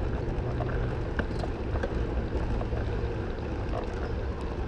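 Steady wind rush and road rumble on a moving recumbent trike's camera microphone, with a few faint ticks.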